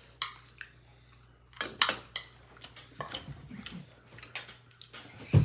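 Tableware clinking and knocking: bowls, plates and a spoon tapped and shifted on the table as food is served and eaten, in a few separate sharp clicks, with one louder low thump near the end.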